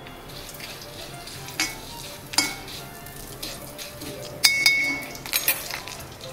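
Idli pieces frying in a little oil in a pan, with a steady sizzle, while they are stirred. Several metal clinks and scrapes of the spatula against the pan, loudest in a ringing cluster a little past four seconds in.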